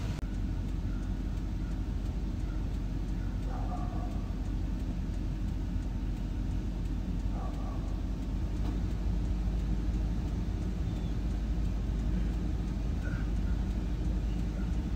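Steady low rumble of an idling vehicle engine, even throughout, with a few faint short high chirps over it.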